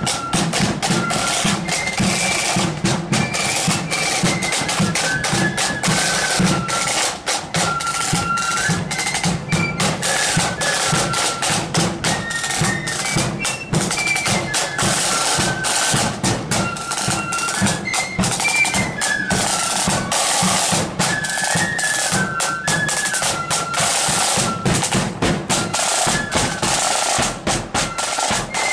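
Marching flute band playing a tune: many flutes in unison carrying a stepping melody over rattling snare drums and the beat of a bass drum.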